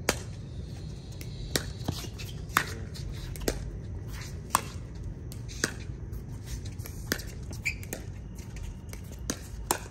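Pickleball paddles striking a hard plastic ball in a net exchange of dinks: a sharp pock roughly once a second, with some fainter ticks between the hits, over a steady low background noise.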